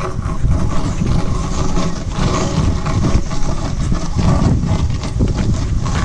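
Tire sled dragged over the ground on its chain: a steady, rough scraping rumble.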